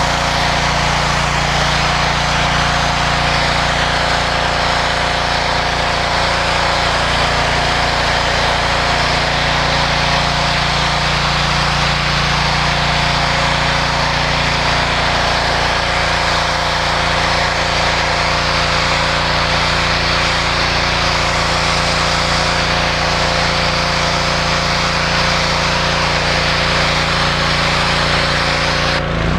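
Northern Tool 3000 psi gas pressure washer running steadily under load, its engine hum under the even hiss of the wand's high-pressure jet spraying concrete.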